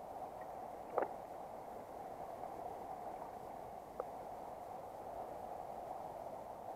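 Steady rush of a shallow river running over stones, with two brief sharp sounds, the louder about a second in and a smaller one about four seconds in.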